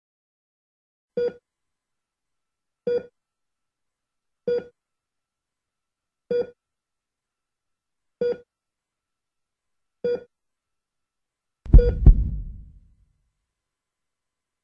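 Short electronic beeps, six of them a little under two seconds apart. Near the end a loud, deep double thud like a heartbeat comes with the next beep and fades out over about a second.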